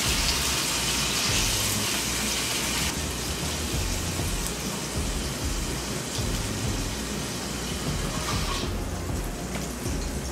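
Fish sizzling in oil in a frying pan as the pieces are lifted out with tongs. The hiss weakens about three seconds in and drops again near the end.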